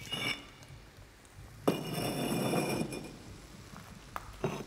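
Kitchen utensils clinking with a short ring, then a longer ringing scrape starting with a sharp knock about two seconds in, and a single click near the end.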